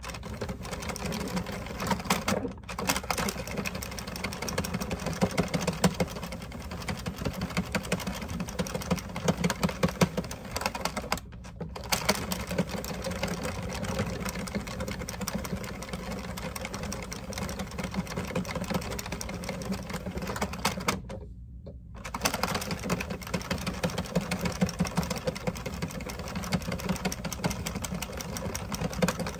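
Addi King Size circular knitting machine cranked by hand: its plastic needles click and rattle quickly and steadily around the ring as rows are knitted, sped up to double speed. The cranking breaks off three times: briefly twice, then for about a second about two-thirds of the way through.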